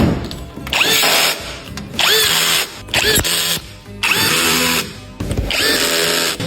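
Power tool run in about six short bursts, each spinning up with a rising whine, typical of driving or removing fasteners during car repair work.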